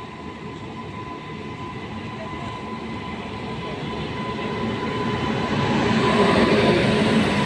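Indian Railways WAP-7 electric locomotive and its train approaching, the running noise growing steadily louder.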